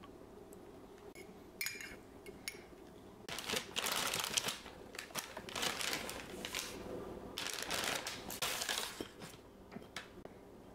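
Thin white paper bakery bag crinkling and rustling in repeated bursts as a croissant is pulled out of it.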